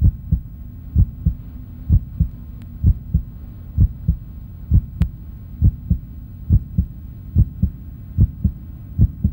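Heartbeat sound effect: a slow, steady double thump (lub-dub) a little under once a second, over a low hum.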